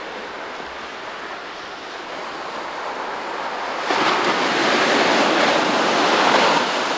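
Ocean surf, a steady rushing hiss that grows louder about four seconds in.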